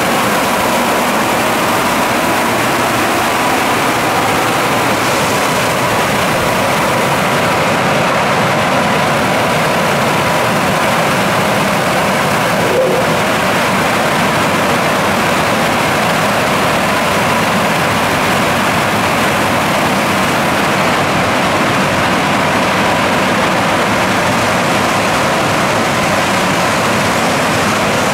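Ceccato Hydrus Tech rollover car wash in its drying stage: the dryer blowers give a steady, loud rush of air with a faint steady hum.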